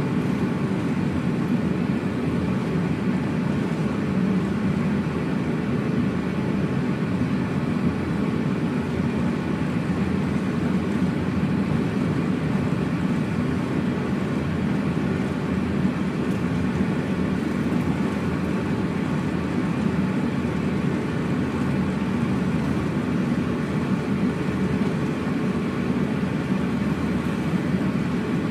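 Steady low cabin rumble inside a JAL Airbus A350-900 on the ground before takeoff: its Rolls-Royce Trent XWB engines running at low power with the cabin air system, even and unchanging throughout.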